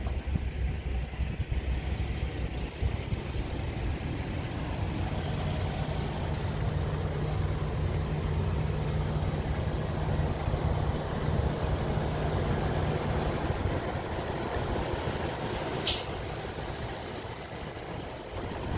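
Low, steady vehicle engine rumble, with a short sharp hiss about sixteen seconds in.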